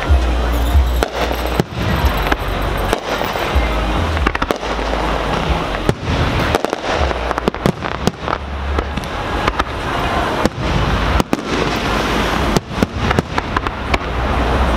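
Aerial fireworks display: shells bursting in quick succession, many sharp bangs one after another over a continuous crackling haze.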